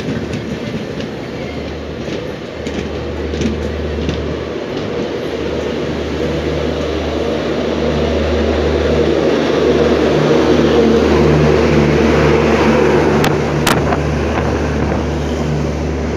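A passenger train's coaches rolling past close by on the adjacent track, heard from another train, with a steady rumble that grows louder toward the middle. Two sharp clacks come near the end.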